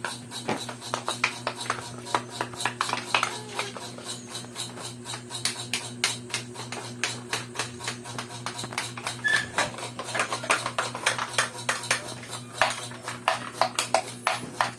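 Rapid, irregular clacking and tapping of small plywood toy tools knocking against each other and hard surfaces, over a steady low hum.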